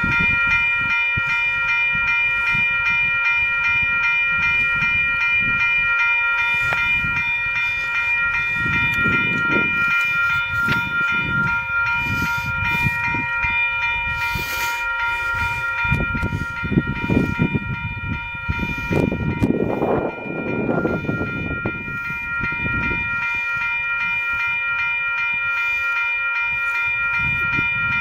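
Railroad grade-crossing bell ringing continuously as a steady ringing tone while the crossing signals stay active for a stopped freight train. Under it are irregular gusts of low rumble from wind on the microphone.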